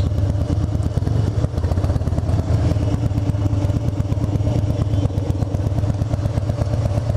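Harley-Davidson Dyna Super Glide Custom's air-cooled V-twin idling with aftermarket sport exhaust tips, a steady pulsing beat, picked up by a microphone inside the rider's helmet.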